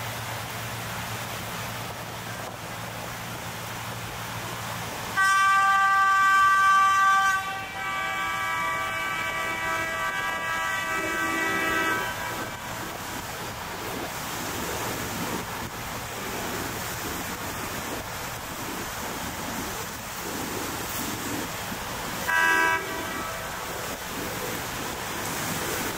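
Boat horns sounding over steady engine and water noise: a long loud blast about five seconds in, a second horn of a different pitch right after it lasting about four seconds, and a short toot near the end.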